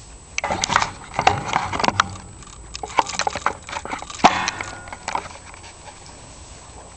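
Irregular metal knocks, clatter and scraping of a garage door roller wheel being worked back into its track, stopping about five seconds in.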